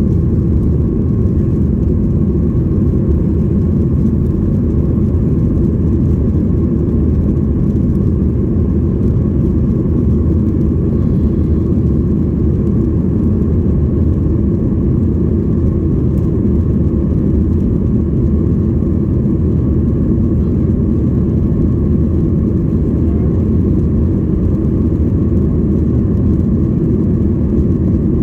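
Steady cabin noise of a Boeing 737-800 at takeoff power, the CFM56-7B turbofans and the airflow making an even low rumble with a faint steady hum above it, heard from a window seat inside the cabin.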